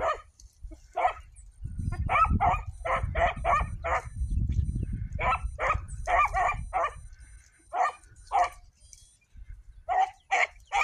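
A single dog barking repeatedly in quick runs of two to five short barks with pauses between, the way a hound gives voice while running a rabbit's track.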